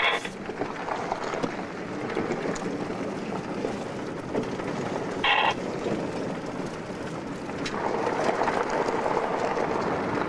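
Steady rushing vehicle and wind noise with wind buffeting the microphone, growing louder about eight seconds in. Two short buzzy bursts cut in, one at the start and one about five seconds in.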